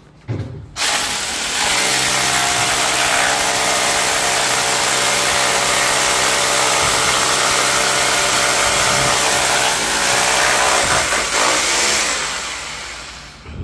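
Electric drill running steadily at full speed for about eleven seconds, then slowing and winding down near the end.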